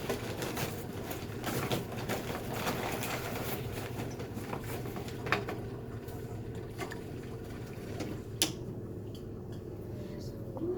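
Small electric fan of a homemade tornado model running with a steady low hum, with scattered light clicks and one sharp tap about eight seconds in.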